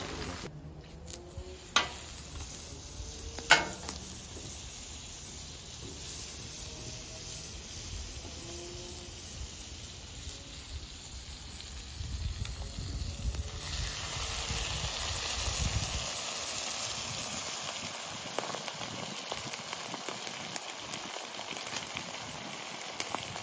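Egg-dipped sandwiches frying in butter on a flat-top griddle, a steady sizzle. Two sharp clicks come in the first few seconds. The sizzle grows louder about fourteen seconds in, as the second sandwich goes down into the melted butter.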